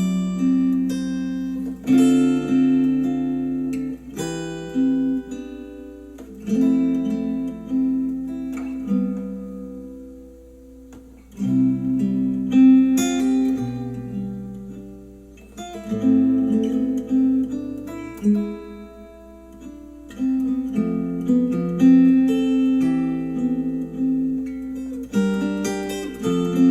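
Acoustic guitar music, plucked chords struck every second or two and left to ring out and fade, played back through Adam Audio A5X powered studio monitors.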